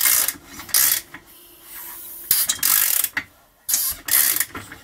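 Socket ratchet clicking in several short bursts as the Yamaha IT490 two-stroke engine is turned over by hand.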